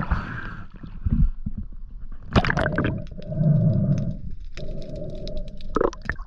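Water sloshing and gurgling around a camera going under the surface during a freedive, with two sharp knocks or splashes, one a little over two seconds in and one near the end.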